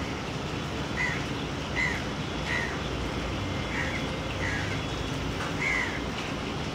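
A bird calling: about six short, slightly falling chirps in a loose series, roughly one a second, over a steady background hiss.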